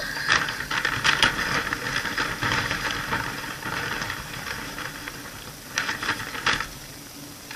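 Crinkling and rustling of a surprise bag's packaging being torn open and handled, with scattered sharp crackles and two louder ones about six seconds in.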